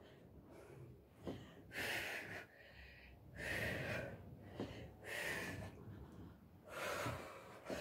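A woman breathing hard from exertion during sit-up-and-punch repetitions: four short breaths out, about one every second and a half.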